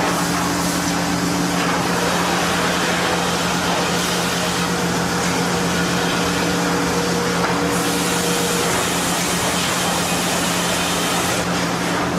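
Sawmill machinery running steadily: a constant mechanical hum under a broad whooshing noise, with a faint higher tone held for a few seconds in the middle.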